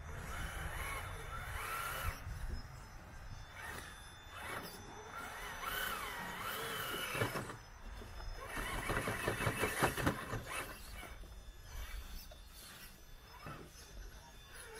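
Radio-controlled rock crawler working up boulders: its small electric motor and gears whine, rising and falling in pitch with the throttle, over scattered clicks and clatter, busiest about two-thirds of the way through.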